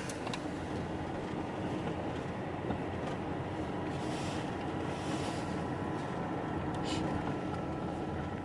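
Steady low rumble of a moving vehicle with a faint steady hum running through it.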